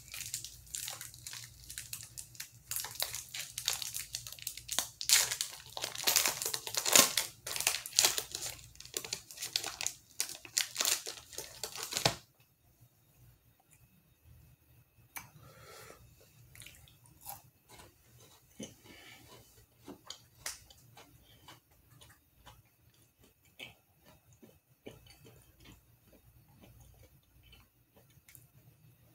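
Kit Kat candy bar wrapper being torn open and crinkled for about twelve seconds, stopping abruptly. Afterwards only faint small clicks and rustles as the bar is handled.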